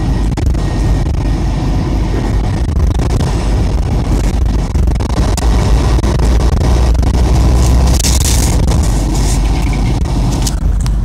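Road traffic heard from inside a moving car: a steady low rumble of tyres and engines in slow traffic beside a box truck, with a brief hiss about eight seconds in.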